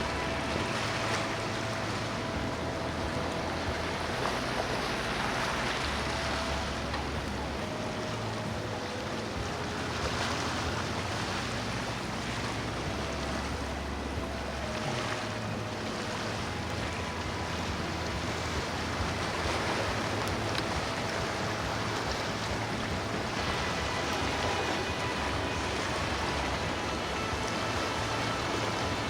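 Steady wash of water and waves, with the low hum of boat engines coming and going.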